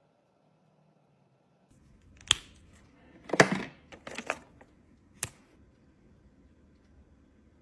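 Plastic Copic markers clicking and clattering against one another as one is picked out of a packed storage rack. There are a few sharp clacks, the loudest about three and a half seconds in.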